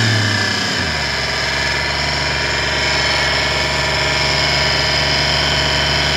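Audi V8 engine in a 1998 Porsche Boxster idling just after a start, settling about a second in, with a steady high-pitched whine over the running. The owner takes the racket to be coming from the power steering pump, which was drained and needs bleeding, not from the engine internals.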